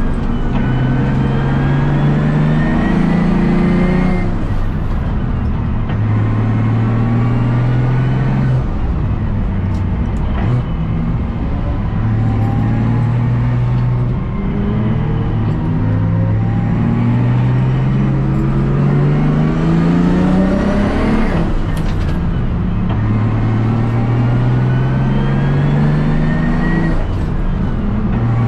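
Race car's single-turbo BMW S55 inline-six running hard on track, its pitch climbing through each gear and dropping back sharply at shifts and lifts, again and again.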